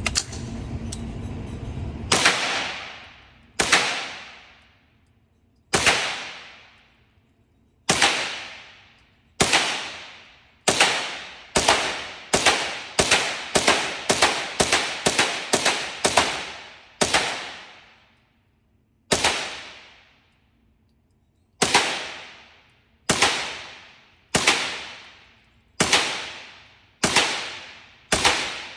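A string of about two dozen .22 rimfire shots, fired semi-automatically with CCI Stinger rounds. Each shot is a sharp crack followed by a long echo. The shots come a couple of seconds apart at first, then quicker, about two a second, in the middle, then slower again.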